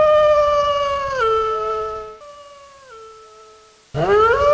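Wolf howling: one long, steady howl that drops in pitch about a second in and fades away. A second howl starts with a rising swoop near the end.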